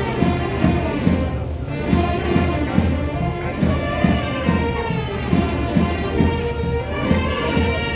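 Traditional temple-festival band music: a loud, reedy wind instrument, typically a suona, held over drums with a steady beat.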